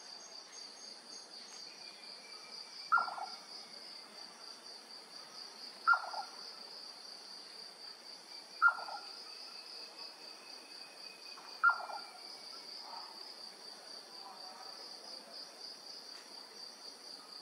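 Jerdon's nightjar calling: four short knocking notes about three seconds apart, each falling in pitch and ending in a brief quaver, over a steady cricket chorus.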